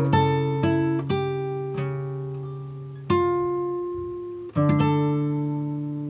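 Background music: slow plucked notes, struck singly or a few at a time and each left to ring and fade.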